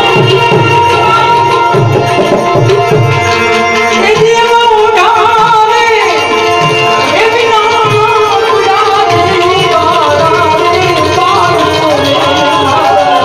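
Live Gujarati devotional music: tabla drums playing a busy rhythm under steady harmonium chords, with a male singer's wavering melody coming in about four seconds in.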